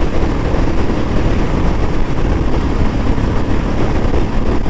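Royal Enfield Bullet 350's single-cylinder engine running steadily at about 120 km/h in fifth gear, near its top speed, mixed with heavy wind rush on the microphone.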